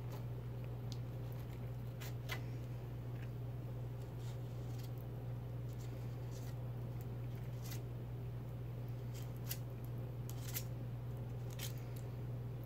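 Metal palette knife scraping and tapping on a plastic stencil loaded with paste, giving scattered light clicks over a steady low hum.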